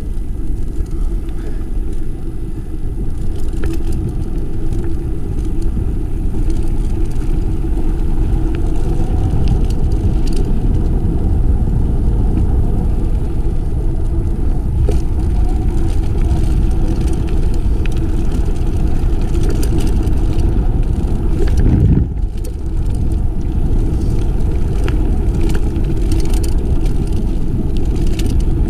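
Wind rumbling on the microphone and mountain bike tyres rolling over a rocky trail on a downhill run, with scattered clicks and rattles from the bike. A louder surge comes about 22 seconds in, followed by a brief dip.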